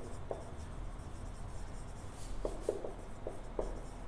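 Marker pen squeaking and scratching on a whiteboard as words are written, in short strokes: one just after the start and a quick cluster of squeaks in the second half.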